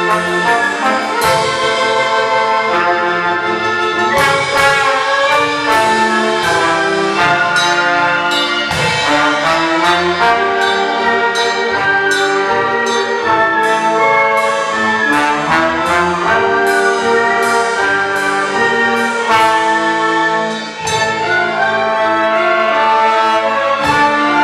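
Orchestra playing, with the brass section (trumpets and trombones) prominent in sustained, changing chords. The music drops briefly about 21 seconds in, then resumes.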